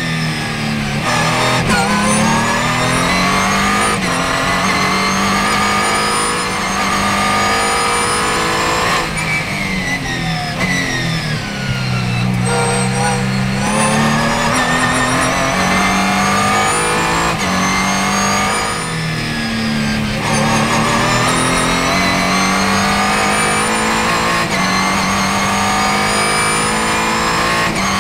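Ligier JS2R race car's Ford 3.7-litre V6 heard from inside the cockpit at racing speed: the engine revs climb through the gears with quick upshifts, then drop back on downshifts into corners several times.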